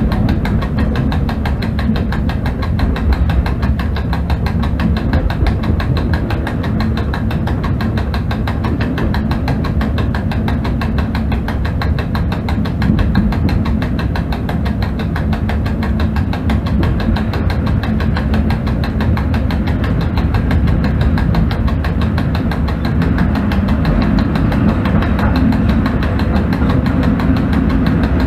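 Steady running noise inside the cab of an ET22 electric locomotive on the move: a loud low rumble with a fast, even rattle throughout.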